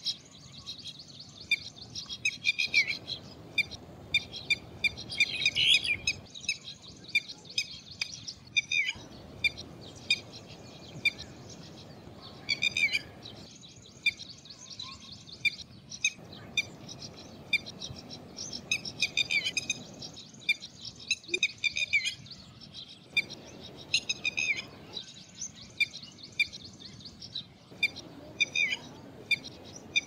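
Red-vented bulbul calling: short, sharp chirping notes in quick runs, repeated again and again.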